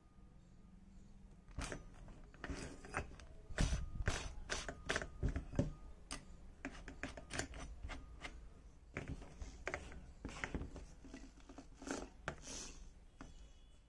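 Keyless chuck of an iBELL TD13-100 drill being twisted by hand to clamp a drill bit: a run of irregular ratcheting clicks and knocks, loudest in the first half.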